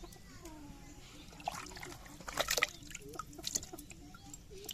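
Water splashing and dripping in a few short bursts, as when pieces of food are handled in a vessel of water.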